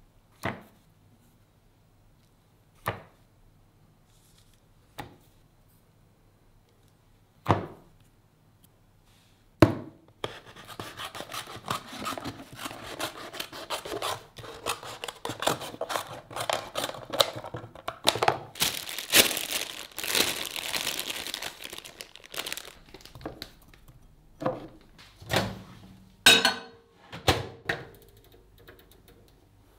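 A few separate knocks of objects set down on a wooden table. Then about twelve seconds of dense crinkling and tearing of packaging, followed by a few more knocks and clunks near the end.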